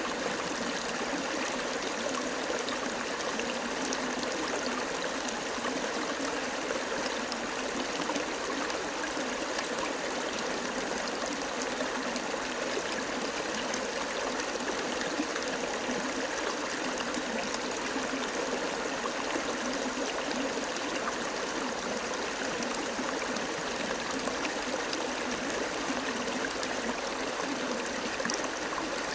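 Water flowing steadily, an even rushing and trickling with no breaks.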